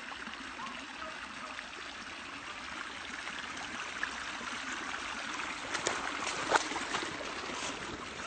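Creek water flowing with a steady trickling hiss, with a few sharp cracks in the last third, as of brush being pushed through.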